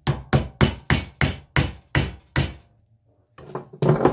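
A rapid run of about nine hammer blows, roughly three a second, on a WW2 German bayonet that is rusted fast in its steel scabbard, which is held in a vise. The blows are followed by a pause, then a last clattering knock with a brief metallic ring near the end.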